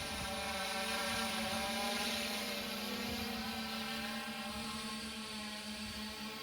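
3DR quadcopter drone's propellers buzzing steadily as it flies an orbit around the recording camera, the pitch wavering slightly and the sound fading a little near the end.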